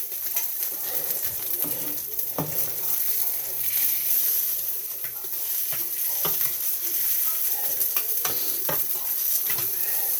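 Sausages and eggs sizzling in a frying pan: a steady hiss with a few sharp clicks scattered through it.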